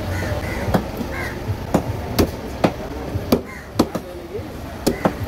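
Knife chopping through a trevally's head and bones onto a wooden board: about eight sharp chops at uneven intervals.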